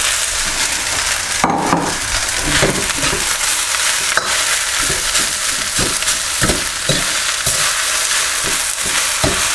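Fried rice with char siu pork sizzling in a hot steel wok over a gas burner, a steady hiss, while a metal ladle stirs and turns it, scraping and knocking against the wok about once a second.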